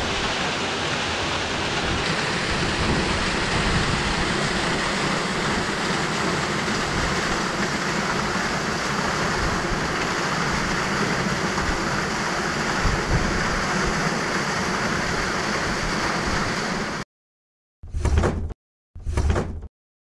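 Steady roar of a stepped mountain waterfall, the water pouring down a rock face into its plunge pool. It cuts off suddenly near the end and is followed by two short loud bursts.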